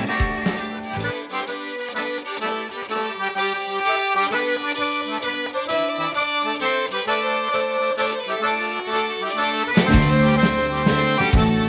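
Cajun accordion playing an instrumental break in chords and melody, with the bass and drums dropped out. The full band with bass and drums comes back in about ten seconds in.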